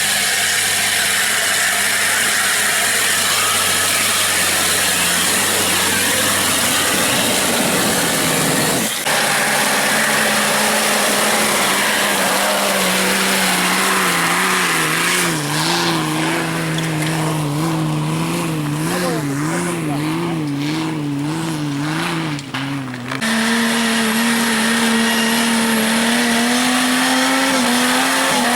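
Off-road 4x4 engine revving hard under full throttle while climbing a loose-stone slope, the revs wavering up and down as the tyres spin and grip. The engine note changes abruptly about a third of the way in and again near the end.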